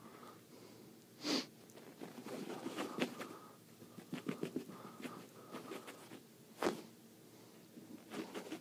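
Pet prairie dog sniffing and snorting as it plays, with two sharper snorts about a second in and again near two-thirds through, between runs of quick soft clicks and scuffles.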